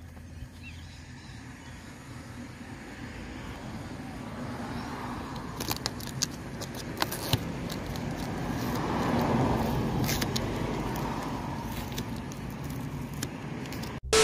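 Duct tape being peeled off a car's grille opening: a few sharp crinkles and clicks, then a rasping noise that swells to a peak midway and fades away.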